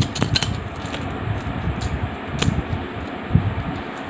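A handful of metal coins clinking together as they are shaken between cupped hands, the rattle thinning out to a few separate clinks, with one sharp clink about two and a half seconds in, as the shaking stops and the hand opens.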